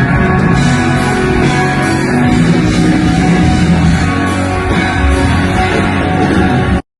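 Loud live rock band music with guitar and drums, heard from inside the concert crowd; it cuts off suddenly near the end.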